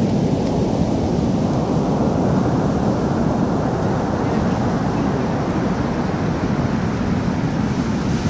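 Ocean surf breaking on the beach: a steady rush of noise that grows fuller about two seconds in as a wave washes up the sand.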